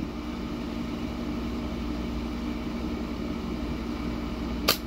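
Steady low hum of an idling vehicle engine, then near the end one sharp snap as a slingshot is shot, firing a steel BB.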